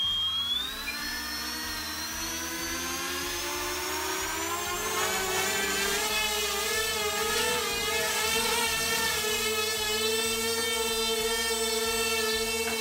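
The three brushless electric motors and propellers of an E-flite Mini Convergence VTOL model airplane spool up and hover. Their whine rises in pitch over the first few seconds, then holds steady with a slight warble.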